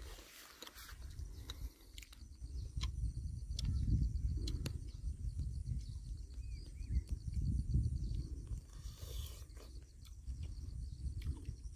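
Close-up chewing, with sharp clicks and mouth smacks, of a person eating fresh fruit. A low rumble of wind on the microphone swells and fades several times.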